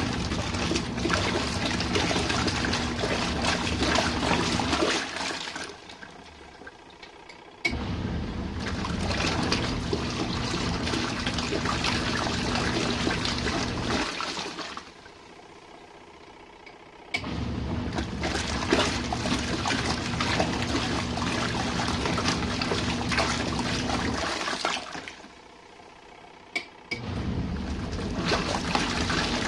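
RV washing machine agitating its load: the motor hums and water sloshes for about five to seven seconds, then stops for two to three seconds, three times over. A sharp click comes just before it starts turning again.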